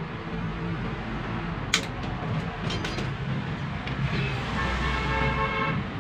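A sharp metallic click from handling a car power-window regulator, then a few lighter clinks, over a steady background hum of traffic. Near the end a pitched, steady drone sounds for about a second and a half.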